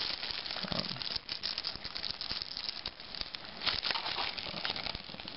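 Shiny plastic packaging bag being handled and pulled out of a box, crinkling and crackling irregularly.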